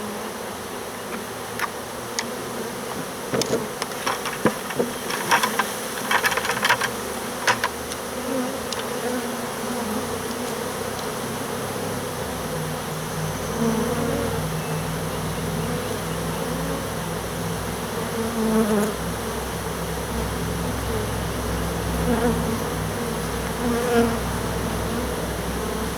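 A honey bee swarm buzzing. In the first several seconds there are sharp knocks and rustling as bees are shaken off branches into a bucket. From about halfway a deeper, steady hum of the massed bees takes over.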